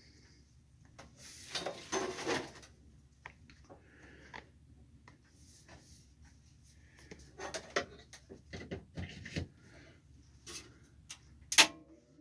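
Handling noises of a welder being plugged in: rustling, light knocks and clicks of the cable and plug, with one sharp, loud click near the end.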